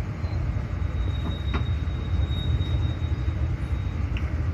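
Steady low rumble, with a thin high whistle through the middle and a single sharp click about one and a half seconds in.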